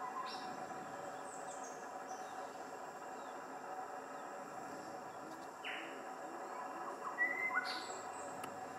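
Wild birds chirping a few short, separate times, loudest near the end, over a steady hum of insects.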